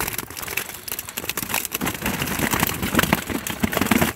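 Wet keepnet and weigh sling rustling and crackling as a netful of carp is tipped from the keepnet into the sling. There are many quick clicks and scrapes, thicker in the second half.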